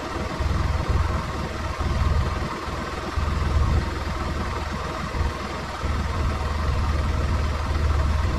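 Arctic Cat side-by-side's engine running, a low rumble that swells and eases every second or so.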